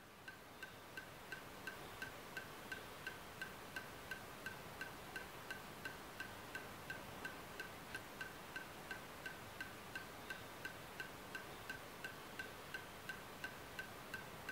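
Faint, even ticking: short high ticks about three times a second over a steady hiss.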